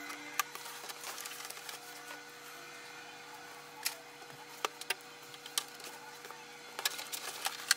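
Scattered light clicks and taps of hands handling a power cord and plugging it into the printer, a few spread through the middle and a quick cluster near the end, over a faint steady hum.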